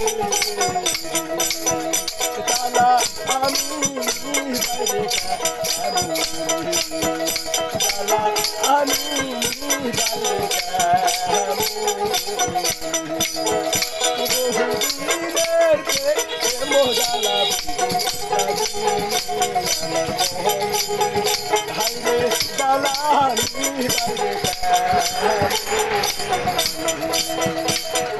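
Bengali folk music: a plucked dotara plays a wavering melody over a fast, steady beat from wooden khartal clappers and small hand cymbals.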